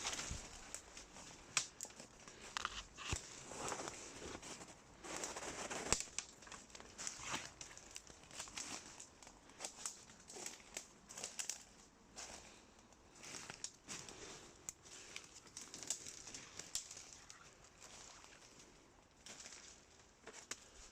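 Footsteps crunching and rustling over debris and undergrowth, with irregular crackles and snaps, busiest in the first half and growing quieter towards the end.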